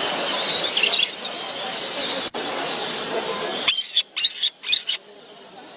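Small cage birds chirping over the babble of a crowded hall, then three short bursts of quick, warbling song, about four seconds in, with abrupt near-silent gaps between them.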